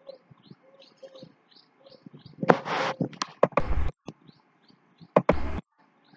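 A small bird chirping over and over in short, high, quick notes, about three a second. Three louder noisy thumps close to the microphone break in during the second half.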